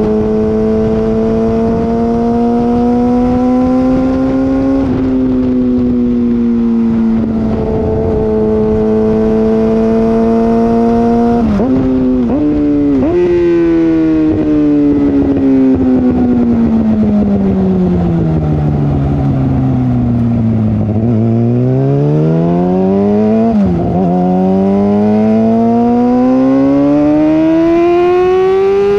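Exhaust of a Yamaha R6's 600cc inline-four, running through an M4 Street Slayer exhaust with the muffler box deleted, while riding. The engine pulls steadily, shifts quickly a couple of times about halfway, then slows in a long falling note. It accelerates again through a gear change near the end.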